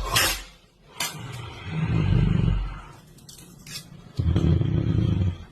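Exaggerated, rumbling snoring: a long low snore, then a louder one starting about four seconds in, with a short hissing breath near the start and a few faint clicks in the quieter gaps.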